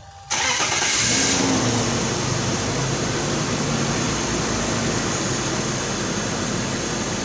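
BMW M54 2.5-litre inline-six starting up about a third of a second in, flaring briefly and then settling to a steady idle. It is the first run after fresh oil and a new oil filter.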